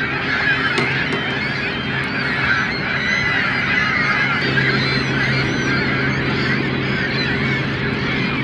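A large flock of birds calling over one another in a dense, continuous chorus.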